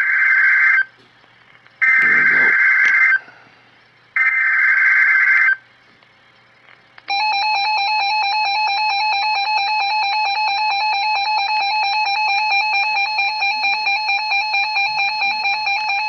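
Emergency Alert System broadcast from a NOAA Weather Radio station. Three short, harsh, buzzy SAME data header bursts come first, about 2.4 s apart, the first already under way. After a short pause comes the long, steady attention tone of about nine seconds, which marks the start of a warning broadcast.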